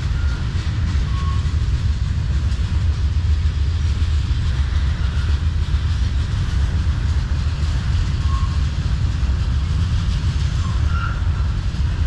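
Freight cars of a Norfolk Southern manifest train rolling past: a steady low rumble, with a few faint, brief high squeaks.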